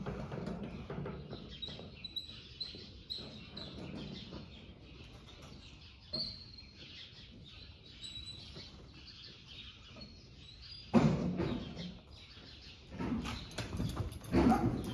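Small birds chirping high in the arena roof in short, repeated chirps. About eleven seconds in comes a loud sudden rustle or thud. Near the end a horse's hooves move on the arena footing.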